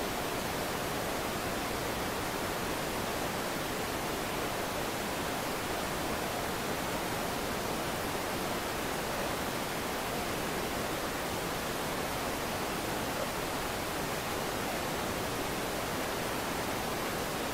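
Steady, even hiss of noise with no distinct events in it.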